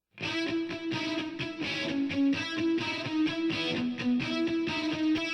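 Background music: an electric guitar with effects playing a riff of short notes in a steady rhythm.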